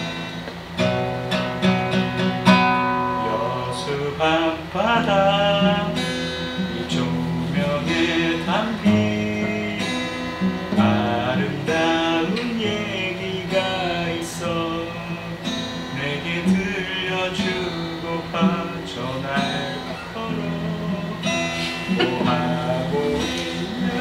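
Acoustic guitar strummed in a song, with a man's voice singing along.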